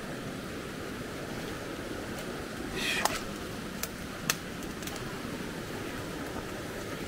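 Creek water flowing, a steady rushing noise. A brief sharper sound about three seconds in and a single click about a second later rise above it.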